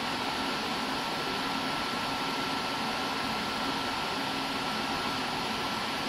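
Steady background hiss with a faint, steady high-pitched whine in it: room tone from a fan or air-conditioning-type noise.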